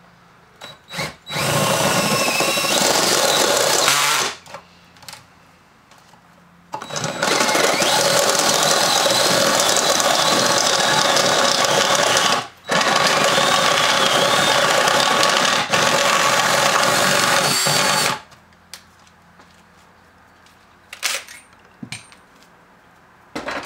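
DeWalt cordless drill with a large step bit, up to 3/4 inch, cutting through the two layers of a metal engine-computer (PCM) housing, with a high wavering whine over the cutting noise. It runs in two spells, a short one near the start and a longer one of about eleven seconds with a brief break midway, followed near the end by a few light clicks.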